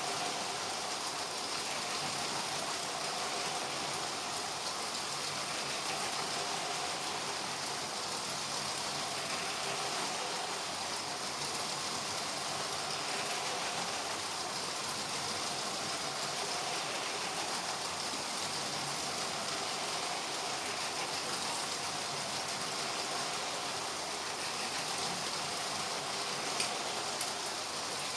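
LEGO trains' small electric motors whirring and plastic wheels rolling on plastic track, a steady hiss-like running noise with a faint whine, and one brief click near the end.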